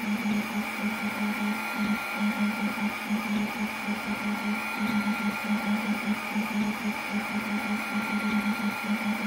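Stepper motors of a Snapmaker 2.0 A150 laser engraver humming in quick repeated pulses as the gantry moves the laser head over the wooden plate, with a steady higher hum underneath.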